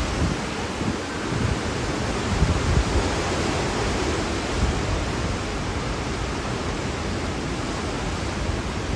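Hurricane-force wind blowing hard as a steady rushing hiss, with uneven low gusts buffeting the microphone.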